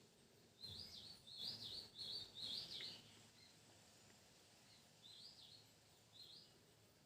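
A bird chirping faintly: a quick run of four chirps, then two more single chirps a few seconds later, over a quiet background hush.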